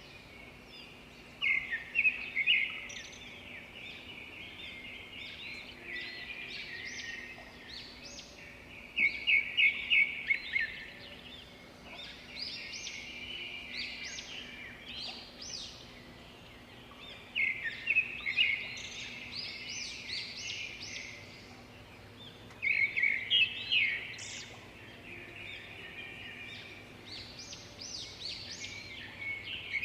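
Small birds chirping and twittering in quick runs of high chirps that come in clusters every few seconds, with softer chirping in between.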